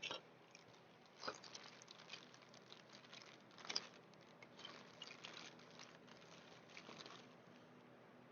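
Faint rustling, crinkling and light taps of packaging handled in short bursts, as a sealed Funko Soda is opened.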